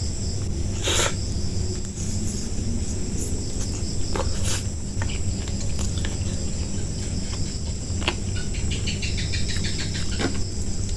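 Close-up eating sounds: chewing, with a few sharp crunches about one and four and a half seconds in and a quick run of small clicks near the end. A steady high insect trill, like crickets, runs underneath.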